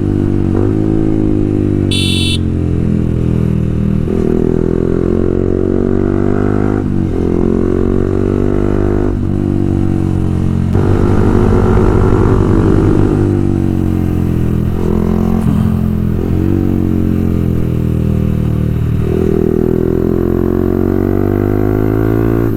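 Motorcycle engine breathing through a Pro Liner full-system exhaust, riding along: the pitch climbs through each gear and drops back at every shift, over and over. A brief high beep sounds about two seconds in.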